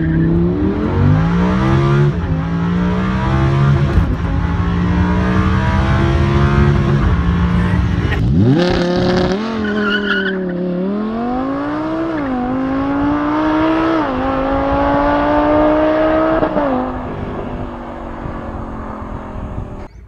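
Lamborghini Huracán LP580-2's naturally aspirated 5.2-litre V10, heard from inside the cabin, running under load with its pitch shifting in the first seconds and then holding steady. After a cut about eight seconds in, the engine pulls hard through four upshifts: its pitch climbs and drops at each shift, every two seconds or so. It then fades near the end.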